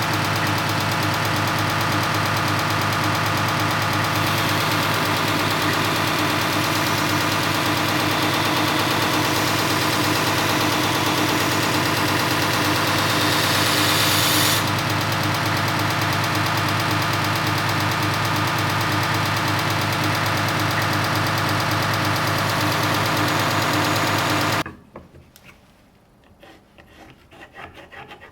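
An electric grinder runs steadily with a motor hum while steel is ground, shaping the bevels of a 15n20 carbon steel knife blade. The harsher grinding noise swells through the first half, and near the end the sound cuts off abruptly, leaving faint handling noises.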